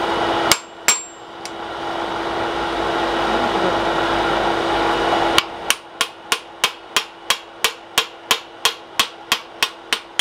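Hand hammer striking the axe blank on a steel anvil while forging. There are two sharp blows just after the start, and a steady run of blows at about three a second over the last five seconds. Between them is a steady rushing noise with a hum, which cuts off when the run of blows begins.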